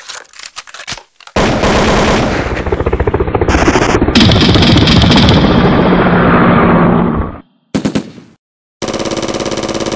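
Electronic toy gun's machine-gun sound effect, rapid rattling fire from its little speaker: one long burst of about six seconds, then two short bursts near the end.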